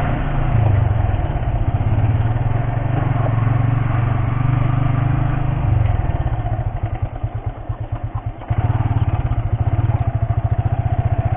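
Motorcycle engine running as the bike rides slowly along a narrow path. About six and a half seconds in the throttle eases off and the engine drops to a slower, quieter putter. About two seconds later it picks up again sharply.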